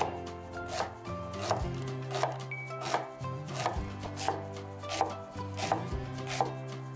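Knife chopping vegetables on a cutting board in steady, even strokes, about one chop every 0.7 seconds.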